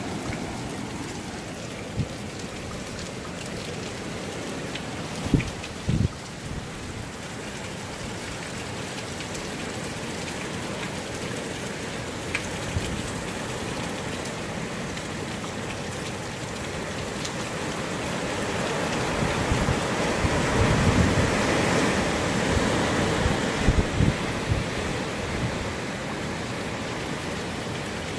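Hurricane wind and driving rain: a steady wash of rain that swells louder in gusts over the second half, with a few short sharp knocks along the way.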